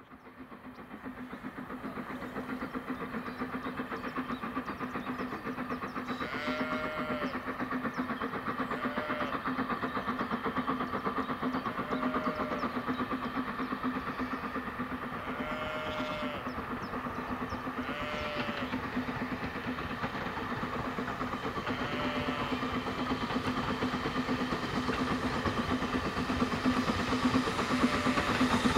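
BR Standard Class 4MT 4-6-0 steam locomotive working a passenger train, its exhaust beats coming fast and steadily louder as it approaches. A few short rising-and-falling tones recur above it now and then.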